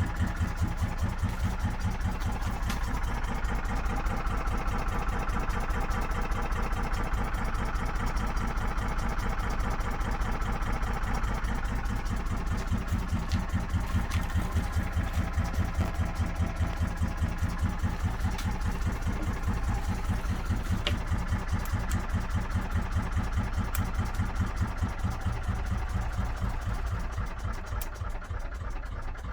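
An engine running steadily at idle with a fast, even pulse.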